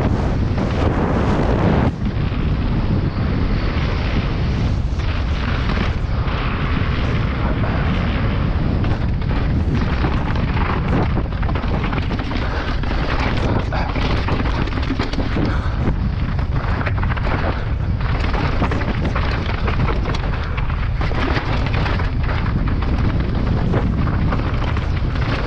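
Constant rushing wind on the microphone of a downhill mountain bike ridden flat out, mixed with a steady clatter of knocks and rattles as the tyres and bike hammer over boardwalk planks and rocky trail.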